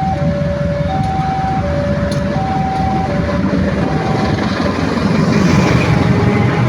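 Railway level-crossing alarm sounding a two-note electronic chime, high then low, each note about three quarters of a second, over the steady rumble of a passing train. The alarm fades about four and a half seconds in as the train noise swells.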